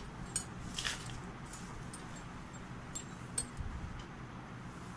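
Cotton dress material being handled: a brief cloth rustle about a second in and a few light clicks, over a steady low hum.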